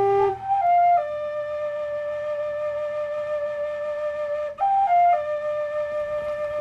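Solo flute playing a slow melody: a short figure stepping down to a long held note, played twice.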